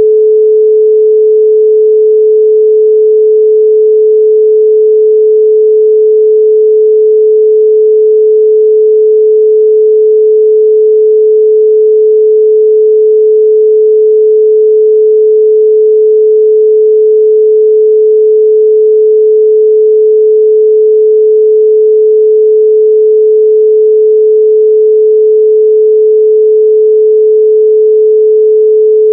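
A steady 432 Hz pure sine tone, one unchanging pitch held at a constant loud level with no other sound.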